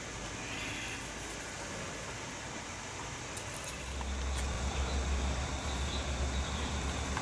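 Steady outdoor hiss, joined about four seconds in by a louder, fluttering low rumble.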